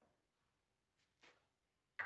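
Near silence: room tone, with a couple of faint, short rustling noises about a second in.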